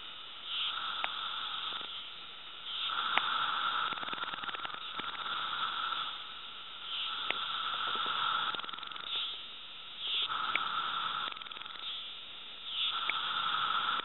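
Chorus of 17-year periodical cicadas (Magicicada), many males calling at once. The calls swell and fade every couple of seconds in overlapping waves, with a steady whine underneath.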